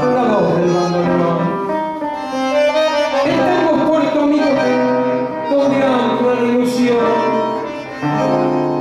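Instrumental tango accompaniment playing between sung lines: sustained chords over a steady bass line.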